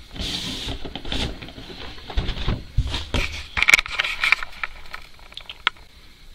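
Cardboard slip cover being slid off a boxed collectible action figure: irregular scraping and rustling of card, with a few sharp knocks and clicks from handling the box.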